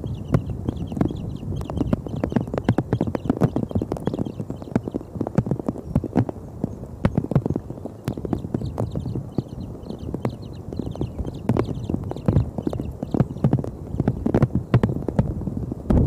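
Storm wind hitting an outdoor nest camera's microphone: a steady low rumble with rapid, irregular clicks and knocks.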